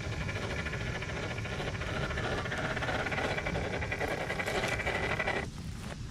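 Electric motor and gear drivetrain of a scale RC rock crawler whining steadily as it crawls over wood mulch and onto rocks; the whine drops out briefly about five and a half seconds in.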